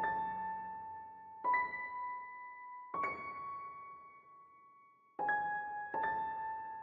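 Background music: slow single keyboard notes, five in a row, each struck and left ringing as it fades.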